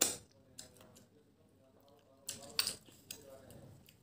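Sharp slurps as cooked snail meat is sucked out of the shell: one right at the start and a longer, louder one about two and a half seconds in.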